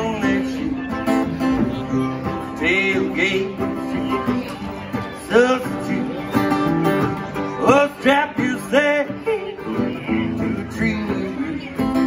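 Live country-bluegrass band playing an instrumental passage: strummed acoustic guitar, electric guitar and drums under a fiddle playing sliding lead lines.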